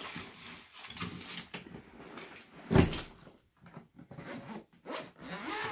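Large padded camera bag being handled and opened: fabric rustling and scattered clicks, with one loud thump about three seconds in.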